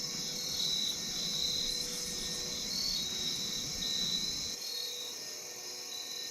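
Crickets and other insects chirring steadily in a high, pulsing chorus. A low rumble runs underneath and stops about four and a half seconds in.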